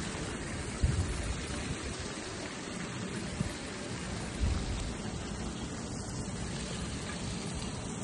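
Fountain water splashing steadily into its pool, a continuous rain-like hiss. Two short low thumps stand out, about a second in and again about halfway through.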